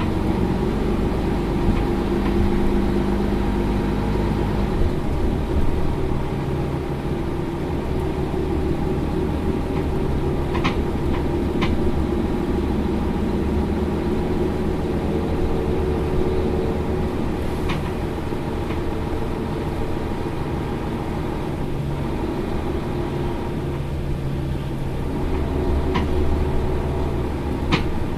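Mercedes-Benz Citaro Facelift LE bus's diesel engine idling steadily, with a few short sharp clicks.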